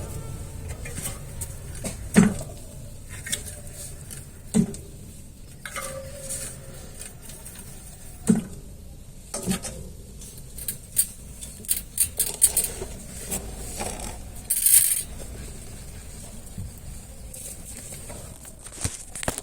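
Mountain bike with hydraulic disc brakes being tested: scattered metallic clicks and knocks from the bike over a low rumble, with a short hiss about three-quarters of the way through. There is no brake squeal; the caliper has just been realigned, which cured the noise.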